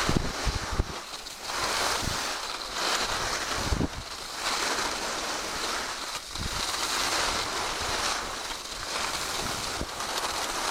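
Skis carving on groomed snow, a hiss that swells and fades with each turn, with wind buffeting the microphone.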